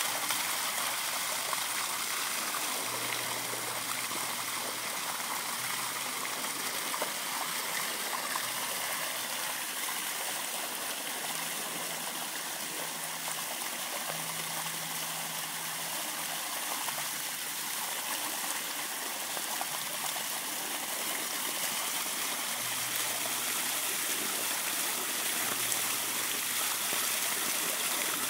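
Water gushing steadily from the side outlet of an open fire hydrant and splashing onto the pavement, an even rushing that does not let up.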